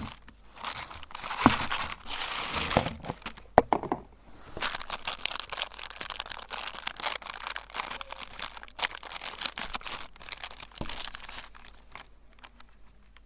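Crunchy cookies crackling and crunching as they are crushed in a meat grinder, a dense run of sharp cracks that thins out near the end.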